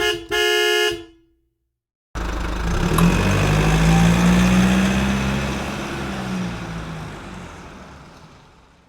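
A short electronic chime, then after a pause a car engine running, its pitch rising and then falling as it fades away.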